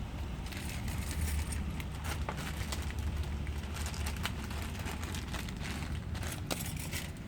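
Handling noise: a run of small clicks and crackles, over a steady low hum.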